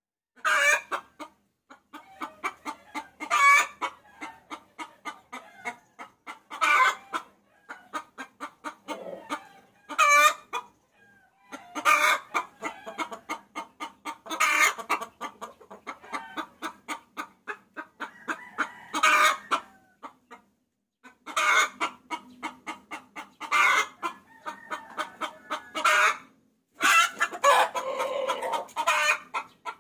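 A hen cackling and clucking: runs of rapid, evenly spaced clucks, broken every few seconds by a louder call, with a couple of brief pauses. It is the hen's call to a rooster, used as a lure.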